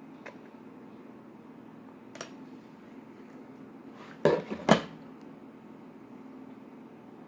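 Hard objects clattering: three or four sharp knocks in quick succession about four seconds in, like a container or utensil being set down or knocked on a table, with a few faint clicks before. A low steady hum runs underneath.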